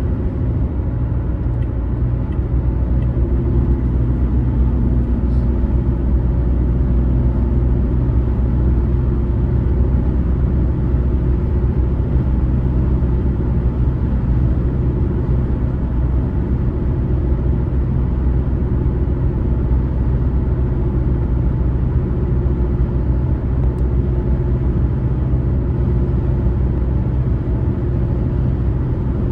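Car travelling at road speed: a steady low rumble of tyre and engine noise, swelling slightly in the first couple of seconds and then holding even.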